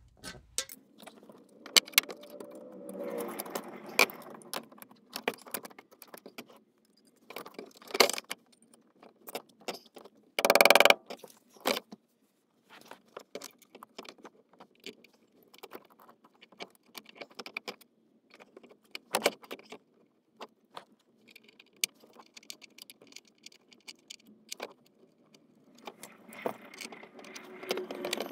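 Scattered metallic clicks, clinks and rattles of short-shifter parts and hand tools as the shifter is refitted to its base plate in the car's floor. A louder clatter comes about ten seconds in.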